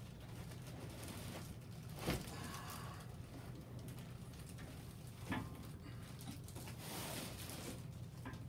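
Plastic wrapping rustling and a cardboard box being handled as plastic-wrapped bandsaw parts are pulled out of it. There are two sharp knocks, about two seconds in and a little after five seconds, over a steady low hum.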